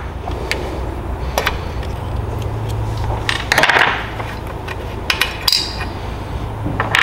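Small metal clicks and clinks, with a short scrape a little past halfway, as billet roller rocker arms are worked off their pivots on a Predator 212 Hemi cylinder head.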